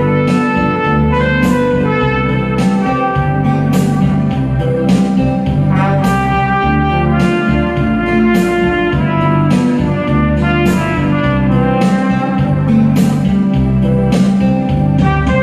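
Trumpet playing a melody of long held notes over a backing track with guitar and a steady beat.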